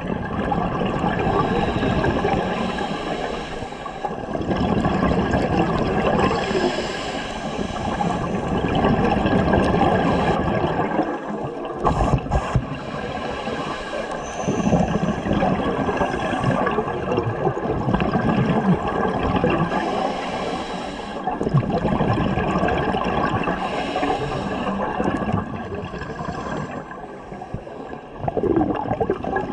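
Underwater sound of a scuba diver breathing through a regulator: exhaled bubbles gurgling and rushing in long surges, easing off between breaths about every seven to eight seconds. A couple of sharp knocks come near the middle.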